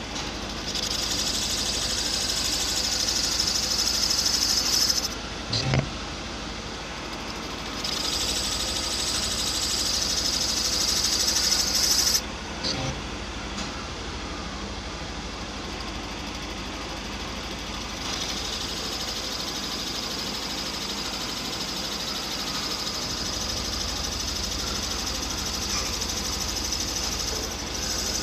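Newen valve seat cutting machine re-cutting worn valve seats in a Renault 1.4 8V cylinder head: a steady motor hum with a high, hissing cutting sound in three passes of several seconds each. A few short knocks come between the passes.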